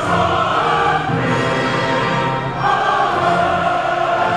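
Choir singing long held notes with orchestral accompaniment, in a live concert performance.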